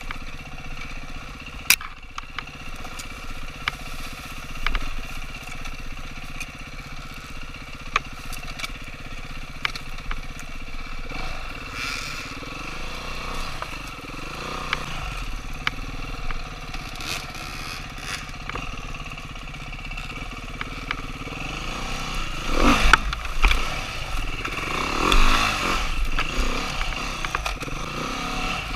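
Dirt bike engine running at low revs over rough trail, with scattered knocks and clatter. In the last several seconds the engine revs up and down harder.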